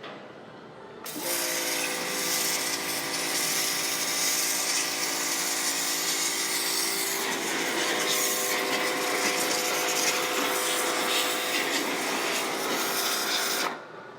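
WAP Bravo electric pressure washer switched on about a second in, running steadily with a motor whine over hissing noise, then switched off shortly before the end.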